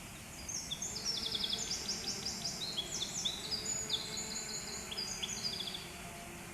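A small songbird singing: a rapid string of high, quick down-slurred notes lasting about five seconds, over a steady low background hum.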